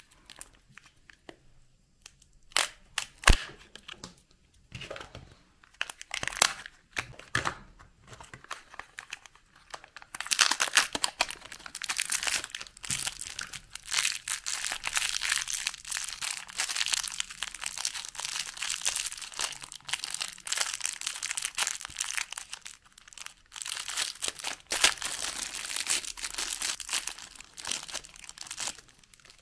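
Foil and clear plastic wrappers crinkling and tearing as a chocolate surprise egg and candies are unwrapped by hand. Scattered crackles come at first, then dense, continuous crinkling from about ten seconds in.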